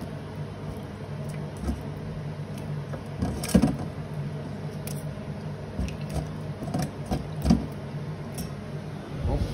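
Frozen green chillies being rinsed by hand in water in a stainless steel bowl: small splashes and knocks against the steel, the loudest about three and a half and seven and a half seconds in, over a steady low hum.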